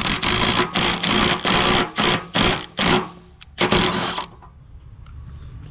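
Impact wrench hammering in several short bursts as it runs the nut down onto a mower-deck blade spindle, stopping about four seconds in.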